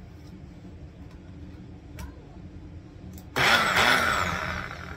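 Ninja personal blender: a click as the empty cup is set on the motor base, then the motor starts suddenly when the cup is pressed down and runs for about a second and a half, its pitch rising and falling as it spins up and dies away.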